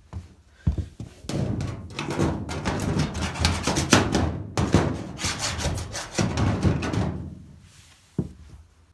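Hand file rasping around the edge of a freshly drilled hole in a steel cabinet panel, deburring it in quick back-and-forth strokes for several seconds. There is a single knock shortly before the filing and another near the end.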